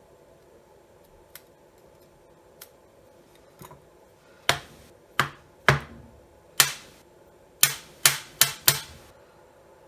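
A few faint ticks, then about eight sharp taps and clicks at uneven spacing over some four seconds: hand work on the inspection camera's probe head to free the camera module lodged in its tip.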